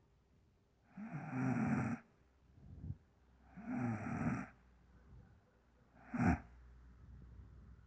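A woman snoring heavily: three snores a little over two seconds apart, the first two about a second long and the last a short, sharp snort, with softer breaths between them.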